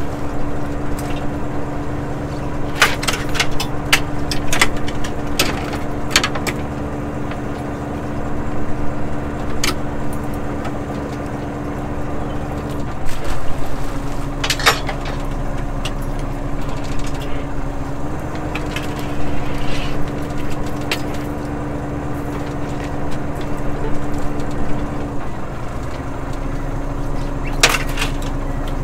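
Fishing boat's engine and line-hauling machinery running steadily while a halibut longline is hauled aboard, a hum whose pitch steps up and down a few times. Sharp clicks and knocks of gear, several in the first few seconds and a few more later.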